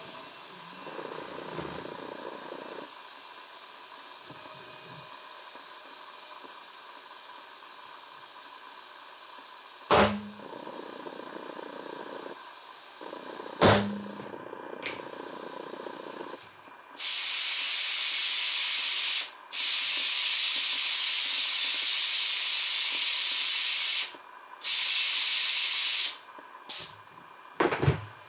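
Compressed air hissing through an inflator chuck with a pressure gauge into a motorcycle tyre's inner tube, in several blasts with short breaks, the longest lasting a few seconds. Two sharp clicks come before the hissing starts.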